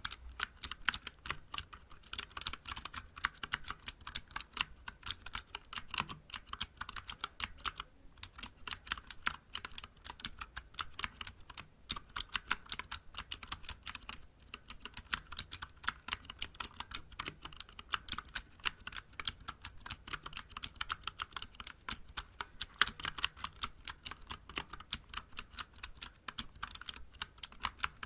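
Fast, continuous typing on a Vortex Vibe mechanical keyboard with clicky Cherry MX Blue switches, SA-profile keycaps and an aluminium case: a dense run of sharp keystroke clicks with a couple of brief pauses.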